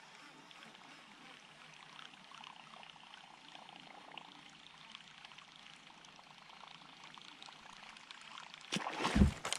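Faint, steady hiss of water and air while a hooked fish is played from a kayak. Near the end comes a sudden loud splash as the fish thrashes at the surface.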